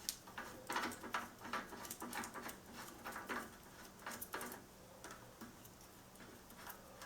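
Light, irregular clicks and taps of metal parts as a bicycle pedal is threaded by hand into the crank arm, thinning out after about five seconds.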